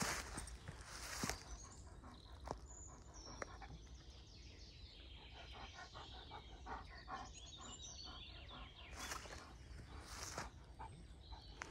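Faint woodland birdsong with rustling through dry leaves underfoot, louder near the start and again about three-quarters through, and a Greater Swiss Mountain Dog panting in a quick, even rhythm.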